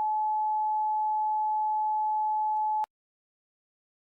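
A single steady electronic alert tone, a pure pitch held without change, which cuts off suddenly a little under three seconds in.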